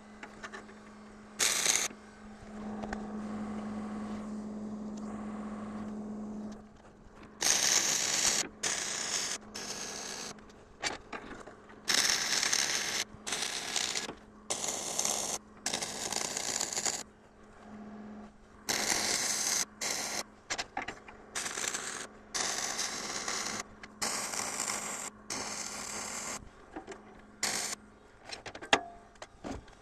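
Stick (arc) welding rebar onto a steel square tube: a run of short bursts of arc noise, each a second or two long with brief pauses between, as the rod is struck and run in short welds. A steady low hum sits underneath and is louder for a few seconds near the start.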